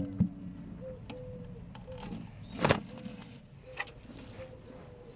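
Pigeons calling: short, soft notes of the same pitch repeating every half second or so, with a few sharp knocks mixed in, the loudest about two and a half seconds in.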